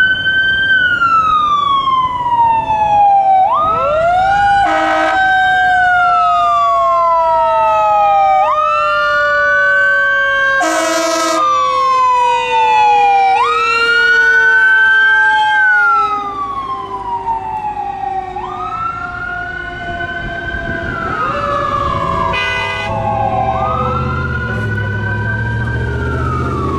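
Fire engine siren on a wail, rising quickly and falling slowly about every five seconds, with a lower siren tone winding slowly down underneath and three short air-horn blasts. A low engine rumble grows near the end as the truck passes.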